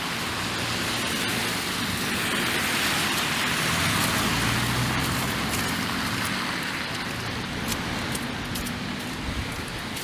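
A car's tyres hiss through wet slush on the street, swelling as it passes around the middle and then fading, over a steady wash of rain.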